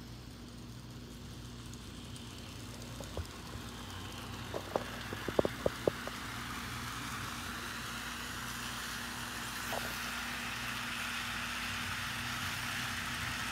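Model freight train running on the layout track: a steady low motor hum and wheel rumble that grow gradually louder as it approaches, with a quick run of sharp clicks a little past the middle.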